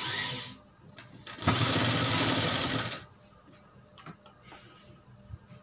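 Pioneer straight-stitch sewing machine stitching fabric in two runs: a short burst right at the start, then about a second and a half of steady stitching, with the machine still and quiet between and afterwards.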